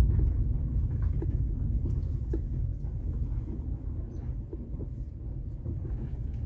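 Mazda 5 driving slowly on a rough gravel road, heard from inside the cabin: a steady low rumble from the tyres and drivetrain, with scattered light ticks and rattles.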